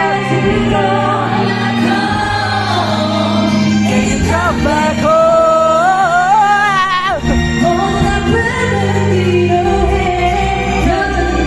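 Live concert music: an amplified pop song with a sung melody over a band or backing track. About halfway through, the voice slides up into a long wavering held note, then drops off.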